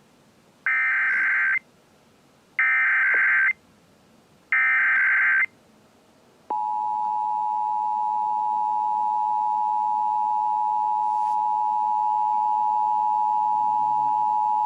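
Emergency Alert System signal opening a required monthly test. First come three short bursts of SAME digital header data, each just under a second long with about a second between them. Then, about six and a half seconds in, the steady two-tone attention signal begins and holds.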